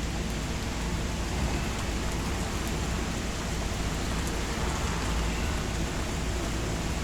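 Steady rain falling, an even, unbroken wash of noise.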